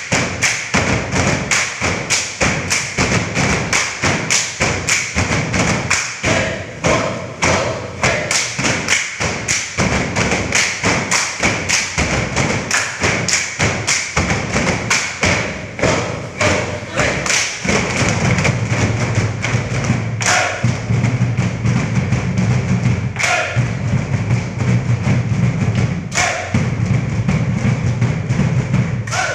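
Randai performers slapping their baggy galembong trousers in time (tapuak galembong): a fast run of sharp, rhythmic slaps. From about two-thirds of the way through, a low steady drone joins underneath.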